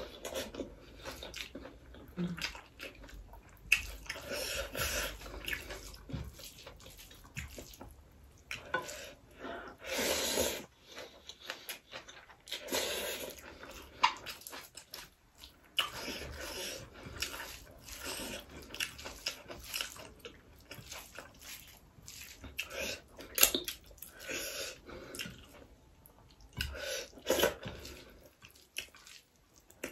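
Wet chewing and lip smacking with sharp mouth clicks, and fingers mixing rice on a plate, coming and going irregularly.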